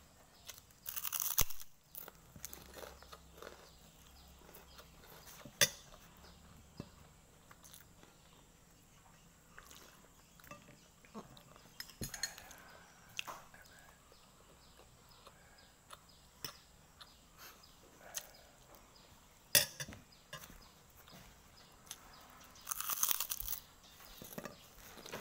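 A crisp white kerupuk cracker being bitten and chewed: a loud crunch near the start, a softer one about halfway and another near the end, with quieter chewing in between. A few sharp clinks of a metal spoon against the plate fall between the bites.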